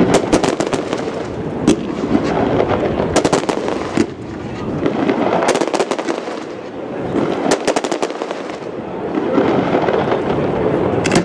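Aerial fireworks shells bursting in clusters of sharp bangs and crackling, a fresh cluster about every two seconds, over a steady background noise.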